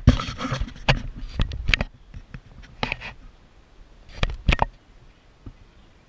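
Handling noise from a camera being gripped and adjusted by hand: a short rub at the start, then a series of sharp close knocks and taps on the camera body, spread unevenly through the first five seconds.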